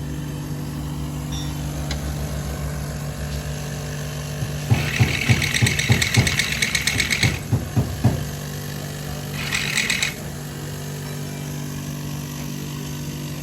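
A steady low machine hum with two spells of loud, rapid rattling knocks: a long one from about four and a half to seven and a half seconds in, and a short one near ten seconds.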